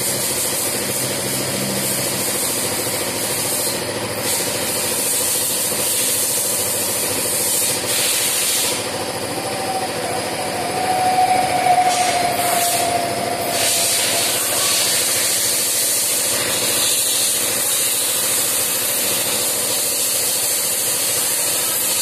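Hands handling motorcycle wiring: rubbing and pushing cables and a rubber connector cover back into place, over a steady hiss.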